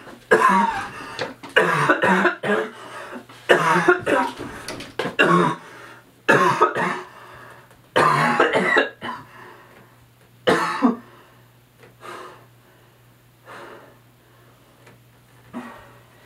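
A person coughing and hacking in repeated short fits, over a low steady hum. The coughs come thickly at first, and after about eleven seconds they thin out into fainter, scattered ones.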